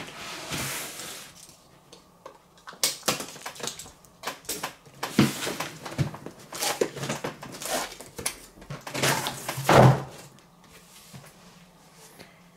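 A cardboard monitor box being opened and its packing handled: irregular rustling and scraping with sharp knocks, the loudest a thump about ten seconds in.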